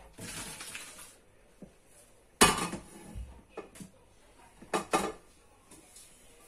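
Clatter of pots and utensils: a few sharp knocks of cookware, the loudest about two and a half seconds in, with smaller ones around the middle and near the end.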